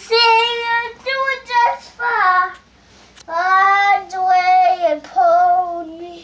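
Young boy singing a song in long, high held notes, the words hard to make out, with a short break about halfway through.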